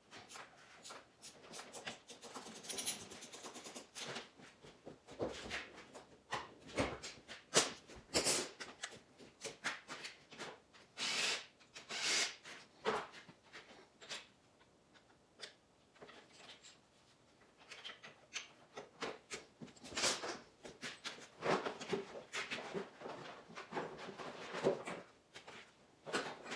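Irregular clicks, knocks and rubbing from hand work on a small ATV: plastic body panels and their fasteners being handled as the fenders and tank cover are taken off.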